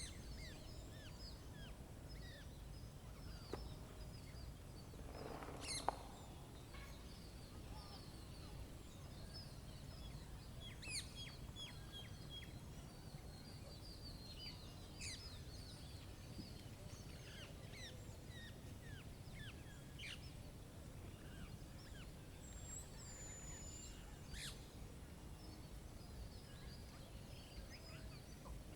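Birds chirping and calling off and on, short high notes scattered through, over a steady low rumble of wind. A single sharp click about six seconds in.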